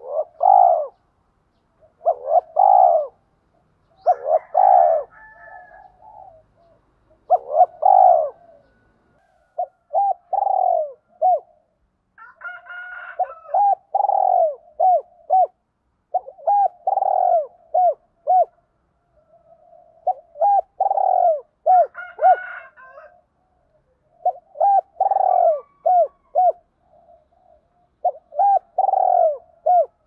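Spotted dove cooing over and over, a phrase about every two seconds: each a loud low coo followed by a few short, quick notes.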